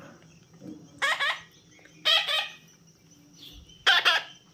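Parrot squawking: three harsh calls, each about half a second long, the first about a second in and the last near the end.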